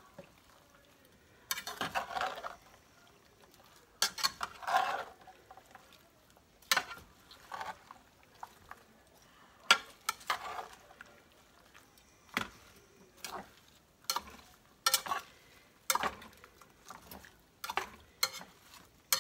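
A spatula stirring a thick, wet mix of cabbage, potatoes and beef in a large skillet: irregular scrapes and knocks of the utensil against the pan, about one every second, the loudest about ten seconds in.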